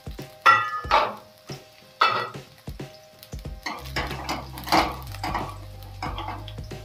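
A metal spoon clinking and scraping against a cooking pan while chillies, mint and whole spices are stirred in hot oil, with a soft sizzle underneath. A few sharp, ringing clinks come first, then a run of quick scraping strokes from about three and a half seconds in.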